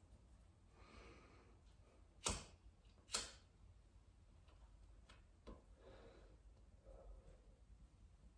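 A cigarette lighter is struck twice, two sharp clicks about a second apart, while a cigarette is lit; otherwise near silence.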